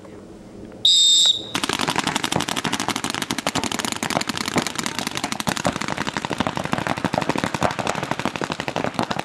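A brief, high-pitched start signal about a second in, then many paintball markers firing fast, overlapping volleys of sharp pops that run on without a break as the game opens.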